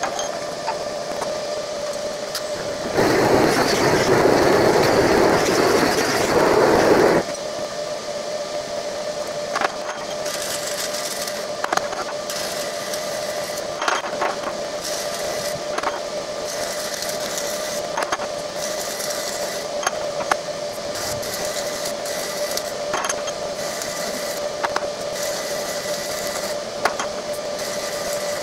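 Dual-shield flux-cored wire welding on a steel excavator bucket in short hissing bursts a second or two apart, over a steady hum. Near the start, a loud rushing noise lasts about four seconds.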